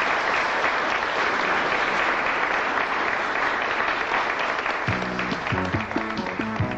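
Audience applauding with steady clapping. About five seconds in, music with a bass line starts up under the fading applause.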